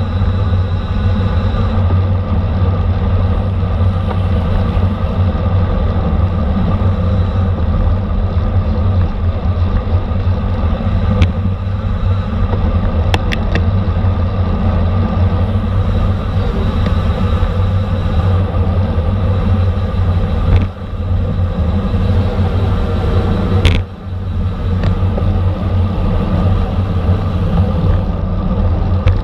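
Steady low rumble of wind rushing over the microphone of a camera riding along in a bicycle race, with a few brief sharp clicks.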